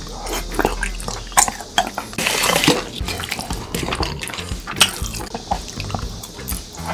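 Close-miked eating sounds: a ladle stirring and scooping thick tteokbokki sauce with wet clicks and sloshes, mixed with chewing of rice cakes.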